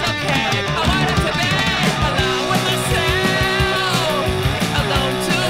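Punk rock song: electric guitars over a steady drum beat.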